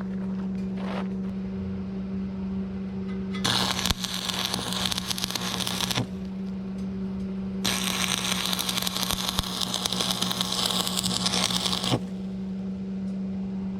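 Angle grinder running with a steady high whine, its disc biting into steel twice: a harsh grinding rush for about two and a half seconds, then again for about four seconds.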